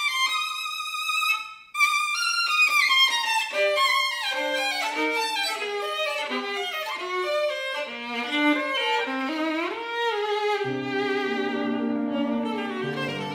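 Violin playing a held high note, breaking off briefly, then running into quick virtuosic passages. Piano chords join the violin near the end.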